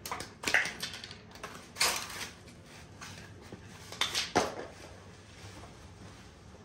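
Loose metal bike parts clinking and clattering as they are handled and set down, in a few short bursts over the first four and a half seconds.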